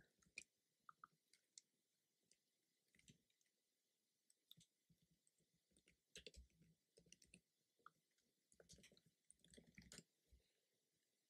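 Faint computer keyboard typing: scattered single keystrokes, with short runs of quicker typing about six seconds in and again around nine seconds in.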